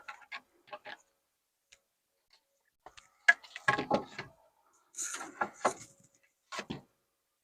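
Wooden knocks and clatter of a lumber rafter being handled and test-fitted against the framing. A few light clicks come first, then three groups of sharp knocks in the second half.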